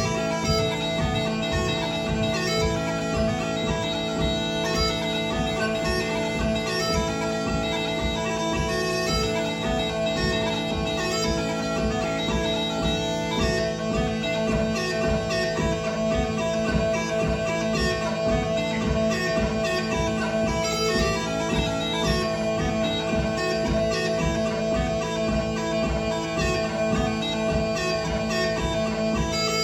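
Scottish smallpipes playing a lively tune: steady drones hold under a chanter melody whose notes change quickly.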